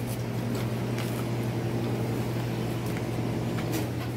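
Steady low machine hum at an even level, with a few faint clicks over it.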